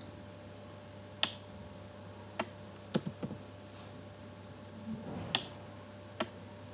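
A few scattered clicks of computer keys and a mouse: single sharp clicks with pauses between them, and a quick run of three or four clicks near the middle.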